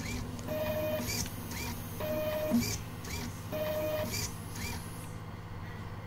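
Stepper-motor-driven homemade wire cutting and stripping machine running a batch. About every second and a half it gives a short steady whine followed by quick whirring strokes, three cycles in all, stopping just under five seconds in. A low steady hum runs underneath.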